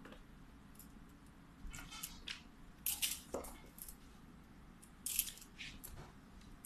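Cats' paws and claws scrabbling and tapping on a laminate floor as they pounce, in short scattered scuffs with the loudest flurries in the middle and about five seconds in. One short falling tone comes about three and a half seconds in.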